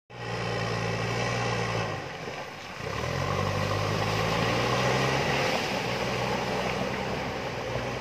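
JCB backhoe loader's diesel engine working under load as the front bucket pushes earth and rock. The engine note drops away about two seconds in, then picks back up and runs steadily.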